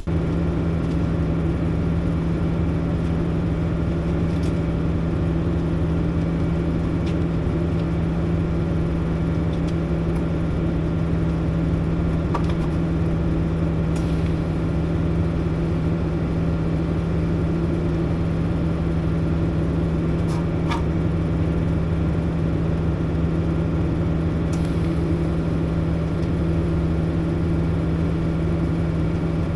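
TIG welding machine running under load while tacking a steel bar-stool joint: a loud, even hum with a strong steady tone over a low rumble, unbroken throughout, with a few faint ticks.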